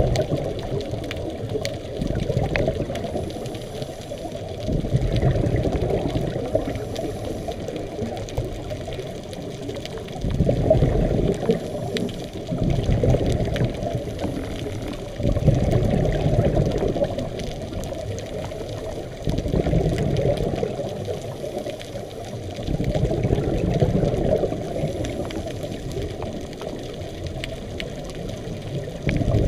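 Scuba divers' exhaled bubbles gurgling up from their regulators, heard underwater, muffled and low. The sound swells in a surge with each breath, about every four to five seconds, over a steady underwater rumble.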